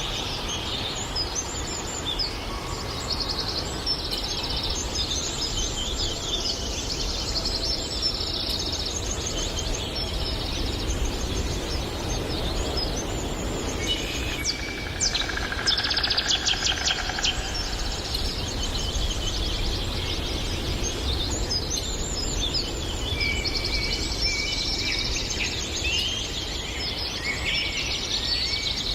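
Songbirds singing in a forest, with trills and rapid repeated chirps that are strongest about halfway through, over steady low background noise.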